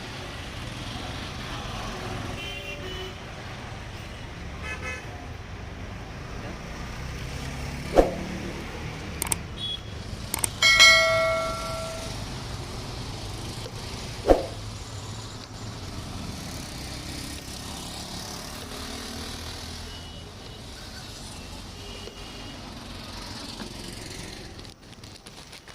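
Busy street traffic with vehicle horns: short beeps a few times and one loud honk lasting over a second about ten seconds in. Two sharp knocks stand out, about eight and fourteen seconds in.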